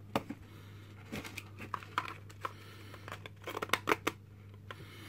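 Small clicks, knocks and scrapes of a BBC micro:bit circuit board being pressed and worked into a 3D-printed plastic housing by hand, with a quick run of clicks about three and a half seconds in. A steady low hum runs underneath.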